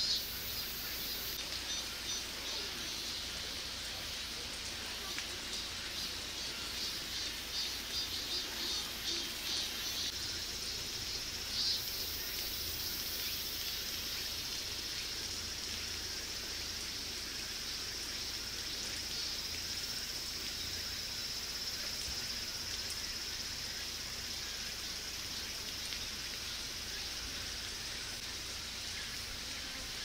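Outdoor background of insects droning steadily at a high pitch, with a rapid run of chirps between about two and ten seconds in.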